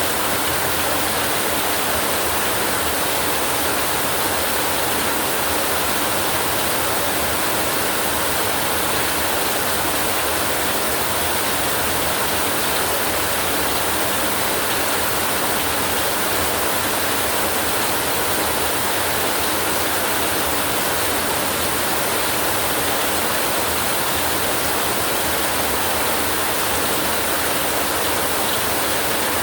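Heavy rain falling steadily, a constant even hiss of water with no breaks or louder strikes.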